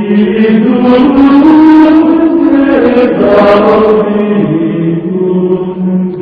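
Hispanic (Mozarabic) liturgical chant: voices singing a slow melody in unison with long held notes.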